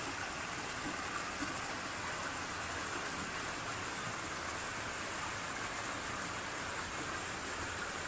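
Small mountain stream spilling over rocks in little cascades: a steady rush of running water.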